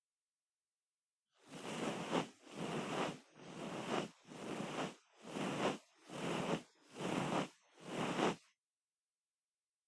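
ASMR ear cleaning on the microphone's ear: eight even rubbing swishes a little under a second apart, starting about a second and a half in and stopping shortly before the end.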